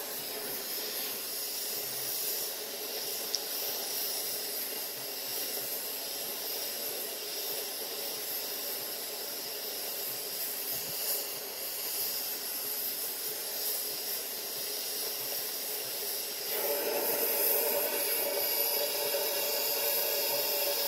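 Gas torch flame hissing steadily as it heats a seized, broken bolt in a cast-iron Ford flathead V8 block to free it. The hiss grows louder and fuller a few seconds before the end.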